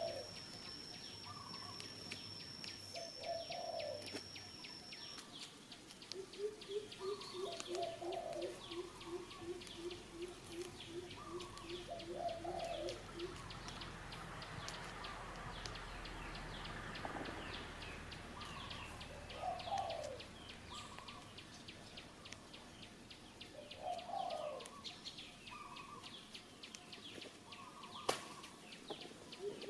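Wild birds calling: a low, falling, dove-like cooing call that repeats every few seconds, and a run of about two low hooting notes a second for several seconds. Scattered high chirps sound throughout, and a thin steady high tone stops about five seconds in.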